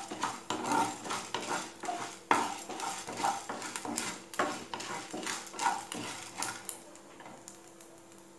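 Wooden spatula stirring and scraping chana dal and urad dal frying in oil in a nonstick pan, in quick repeated strokes over a light sizzle. The stirring stops with about two seconds left, leaving only a faint sizzle.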